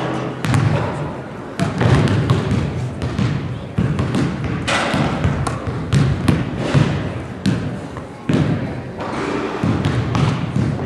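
Basketballs bouncing on a hardwood gym floor, a string of irregular sharp thuds, over steady crowd chatter.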